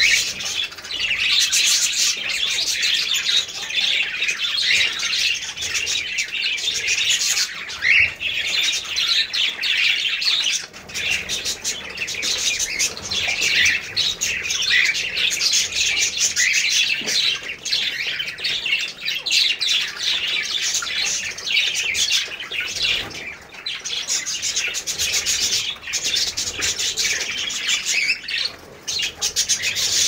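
Caged Alexandrine parakeets chirping and squawking in a dense, unbroken chatter of short calls.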